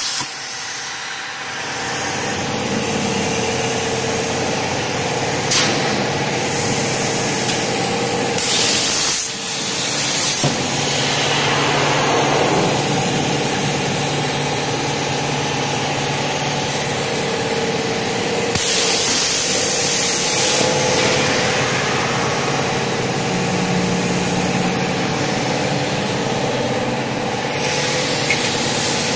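CNC plasma cutter's arc hissing steadily as it cuts steel plate, over a steady hum. The hiss swells louder for a second or two about three times.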